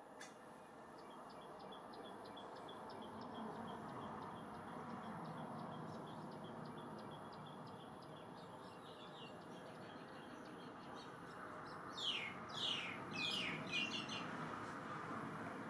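Birds calling: a run of short high chirps, about three a second, through the first half, then about five loud downward-sweeping calls in quick succession near the end. A steady background hiss runs underneath.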